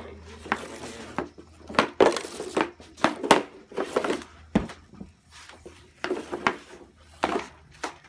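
Hockey stick blade and pucks clacking and scraping on a tile patio: a run of sharp, irregular knocks, some with a short ring.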